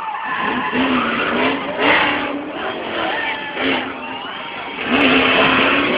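Drift car's engine revving up and down as it slides through a corner, with tyre screech. The revs rise again and get louder about five seconds in.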